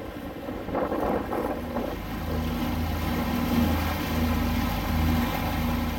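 Sailboat's engine running with a low hum that swells and fades from about two seconds in. Wind gusts across the microphone and water rushes past the hull.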